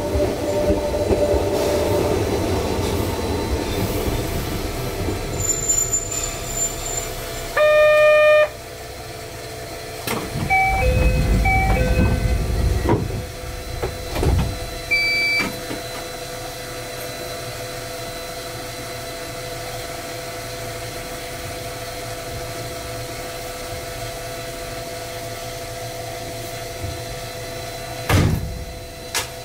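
In the cab of a stopped 260 series narrow-gauge electric train, a neighbouring train rumbles away over the first several seconds. A loud steady tone sounds for about a second around eight seconds in, and a few short beeps follow. After that the standing train's equipment hums steadily until a single thump near the end.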